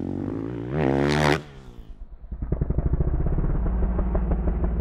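Motocross dirt bike engine revving up sharply about a second in, then cutting off suddenly; after a short lull the engine runs on with a fast, even pulse.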